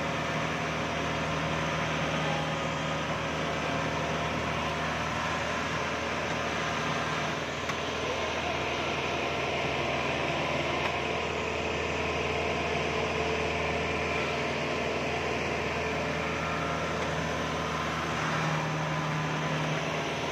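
Rice combine harvester's engine running steadily, a constant low drone heard from the operator's platform.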